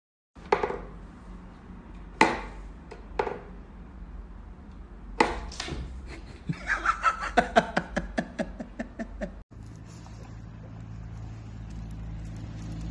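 Sharp wooden knocks from a cat's whack-a-mole toy as its pegs pop up and the cat strikes at the holes, a few single knocks and then a quick run of rapid clicks. About nine and a half seconds in the sound cuts to a steady low rumble.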